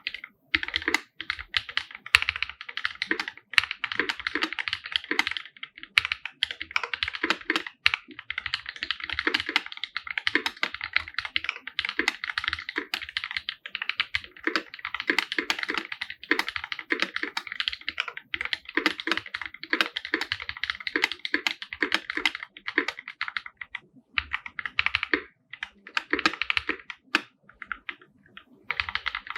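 Continuous fast typing on a custom 50% mechanical keyboard with an aluminium case, original Holy Panda tactile switches and GMK keycaps: rapid keystroke clacks with a few brief pauses between bursts.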